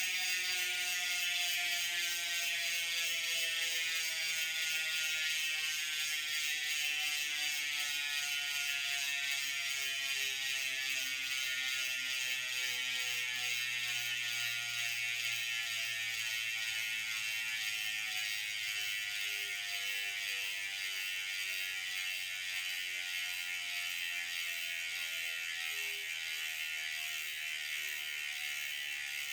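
DT Swiss 350 rear hub with a 54-tooth ratchet freewheeling: a fast, even ratchet buzz from the coasting wheel, its pitch slowly falling as the wheel loses speed.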